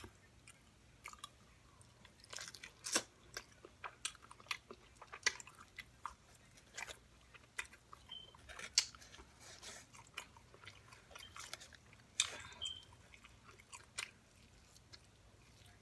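A person eating close to the microphone: irregular chewing, biting and crunching of fried chicken wings and seasoned fries, with small mouth clicks.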